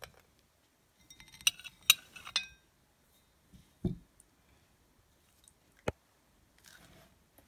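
Metal spatula clinking against a ceramic plate as pieces of flapjack are lifted and set down: a quick cluster of clinks, then a dull thump about four seconds in and one sharp click near six seconds.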